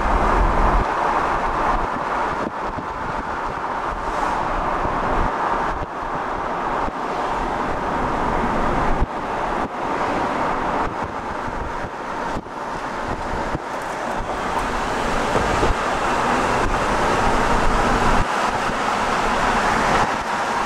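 Steady road and tyre noise with wind rushing past, heard from inside a moving car.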